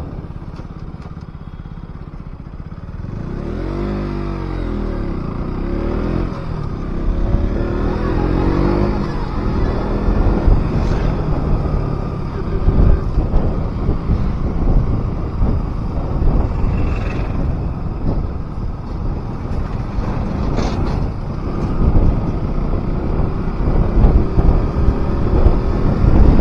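KTM RC 200's single-cylinder engine running on the move. The revs rise and fall a few seconds in, and then the engine pulls on louder.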